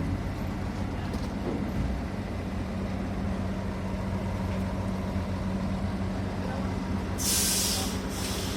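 Heavy diesel engine running steadily at a constant note. Near the end comes a loud hiss of released air, then a second, shorter hiss.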